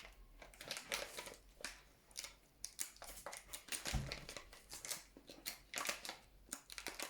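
Plastic packaging rustling and crinkling in irregular short bursts, with small clicks as the parts are handled, and a soft thump about four seconds in.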